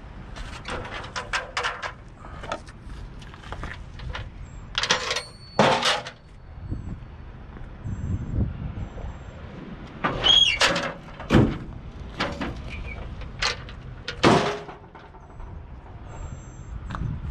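Steel car hauler trailer gear being handled: irregular clanks, knocks and scrapes of metal, a few sharp clangs ringing briefly.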